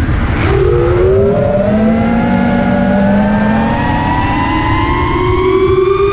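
Brushless motors and propellers of a 5-inch FPV freestyle quadcopter whining, the pitch climbing steadily over several seconds as the throttle comes up, with wind rush on the onboard camera's microphone.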